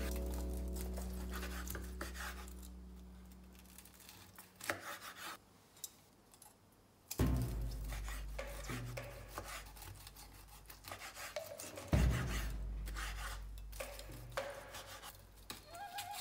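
Kitchen knife slicing through crisp-skinned roast duck breast on a wooden cutting board: irregular rasping cuts and clicks, with a sharp knock of the blade on the board about seven seconds in and again about twelve seconds in. Background music fades out over the first few seconds.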